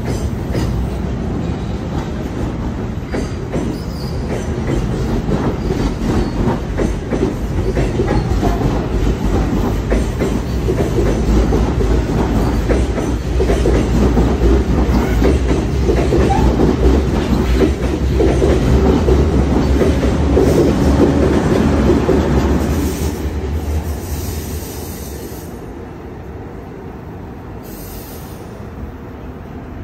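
NJ Transit commuter train of bi-level Multilevel coaches rolling past close by, a dense rumble with rapid wheel clatter that grows louder, then dies away about 24 seconds in as the last car clears.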